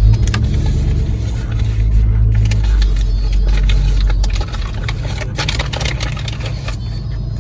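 Car engine and road rumble heard from inside the cabin, heavier for the first few seconds and then easing off, with scattered short rustles and clicks.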